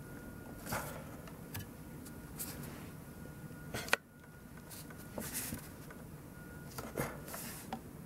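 Faint handling sounds of fingers working at the bottom edge of a 2009 iMac's aluminium case to pull out its RAM modules: light rubbing and scraping with a few small clicks, the sharpest just before four seconds in.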